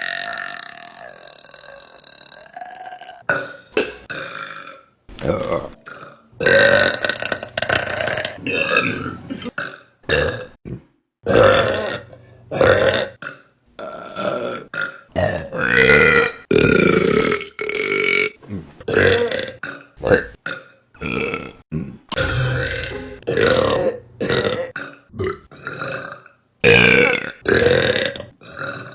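Women burping one after another, about two dozen burps in quick succession, some short and some drawn out. The first is a long burp trailing off over the opening seconds.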